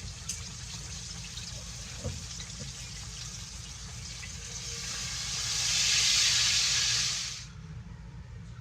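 Thin flour-dredged pork chops frying in hot oil in a pan, a steady sizzle that swells much louder about four and a half seconds in, then cuts off suddenly near the end.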